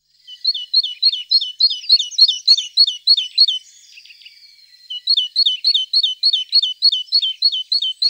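A yellow-bellied tyrant flycatcher calling: two runs of quick, sharp, hooked notes at about four a second, with a pause of about a second between the runs.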